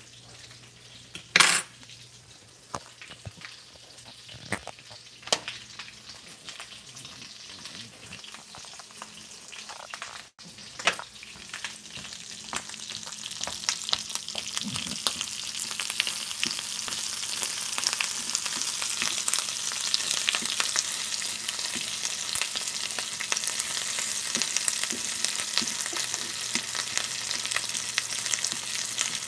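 Chorizo frying in oil in a small pan, sizzling and crackling with splatter, while a fork stirs and scrapes in the pan; the sizzle grows louder about halfway through. A sharp knock sounds about a second in.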